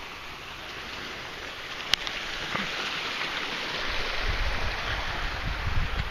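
Wind outdoors: a steady rush that slowly builds, with low buffeting of wind on the microphone from about four seconds in, and a single sharp click about two seconds in.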